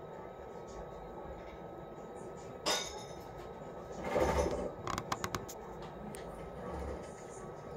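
Distant aerial fireworks going off: a sharp pop about a third of the way in, then a louder deep boom a little past halfway, followed at once by a quick run of crackles.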